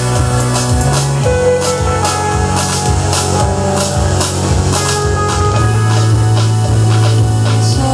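Live rock band playing an instrumental passage: drum kit keeping a steady beat with cymbals, electric bass holding long low notes and guitar.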